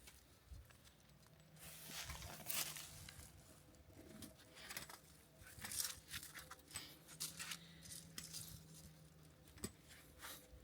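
Faint, irregular clicks, scrapes and rustles of fence wire being handled and tied to a post.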